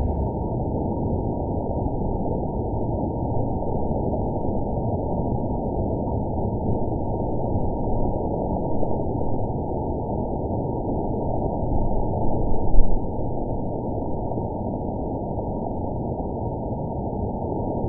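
Hail noise slowed down with the slow-motion footage, so it plays as a deep, even hiss with nothing above the low range. There is a short louder patch about thirteen seconds in.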